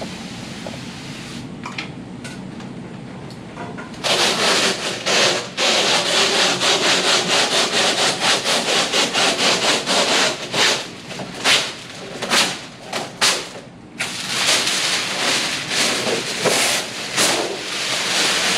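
Rapid back-and-forth rubbing strokes by hand on window glass being prepped for safety film, starting about four seconds in over a steady background hum, with a brief pause near fourteen seconds.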